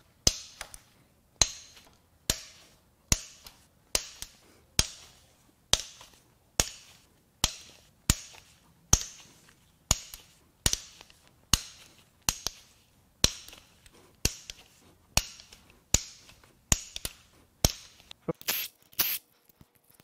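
Cam-cap and valve-cover bolts on a Volkswagen 2.0 TSI EA888 cylinder head being cracked loose one after another with a hand ratchet: a sharp metallic crack with a brief ring a little more than once a second, coming faster near the end.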